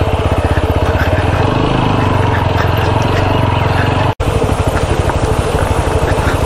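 Motorcycle engine running steadily at low speed, a rapid even firing beat, as the bike picks its way over a rocky dirt track. The sound cuts out for an instant about four seconds in.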